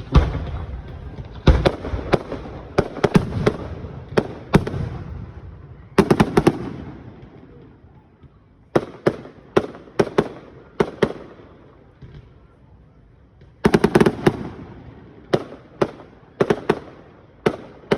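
Aerial fireworks shells bursting in a series of sharp bangs, coming in clusters with short lulls. There are rapid strings of reports about six seconds in and again around fourteen seconds.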